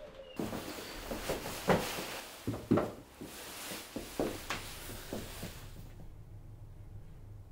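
A trophy being handled and set onto a wooden shelf: a run of light knocks and clunks over rustling, the loudest a little under three seconds in.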